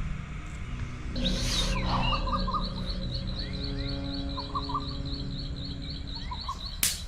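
Birds calling: a high, rapidly repeated chirp, about five notes a second, starting about a second in, with short bursts of lower chirping calls now and then. A single sharp click near the end.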